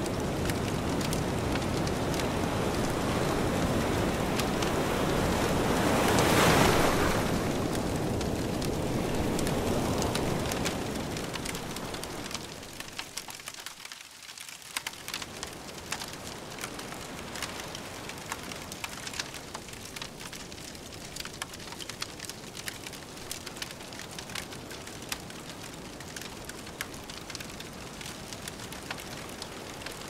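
Log campfire crackling over the wash of waves breaking on the shore. The surf swells loudest about six seconds in, then fades down around twelve seconds in, leaving many sharp pops and crackles from the fire over a softer hiss.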